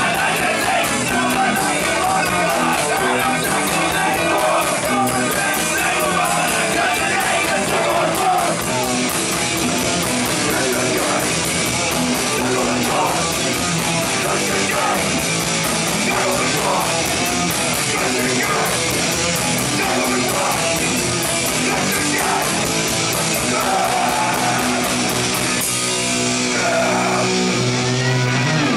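Punk band playing live at full volume: distorted electric guitars, bass and fast drums with steady cymbal strokes, with sung vocals. Near the end the cymbals drop out as the song comes to its close.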